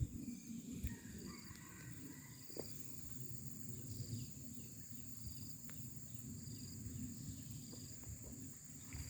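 Insects droning steadily at a high pitch, with a short high chirp repeating about every second, over a low rumble.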